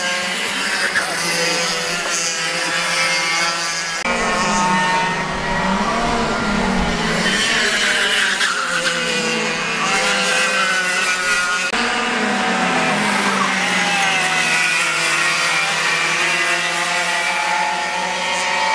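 Several two-stroke racing kart engines running on the circuit, their pitch rising and falling as they accelerate and lift off through the corners.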